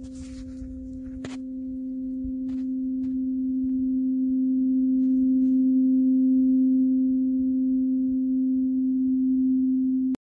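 A large hand-held steel tuning fork ringing with a steady, pure low tone and a faint higher overtone, swelling louder over the first few seconds. A few faint clicks come early, and the tone cuts off abruptly near the end.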